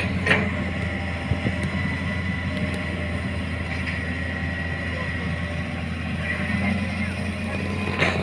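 Excavator's diesel engine running steadily, with a thin high whine over the low hum and a brief knock just after the start and again near the end.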